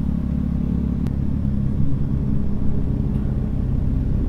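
Motorcycle engine running steadily at low revs while the bike is ridden slowly, with a faint click about a second in.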